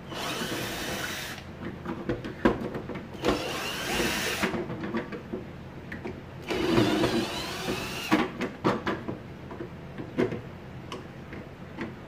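Cordless drill-driver running in three short runs, its pitch sliding, as it backs screws out of a plastic vacuum cleaner housing. Between runs come sharp clicks and knocks of handling.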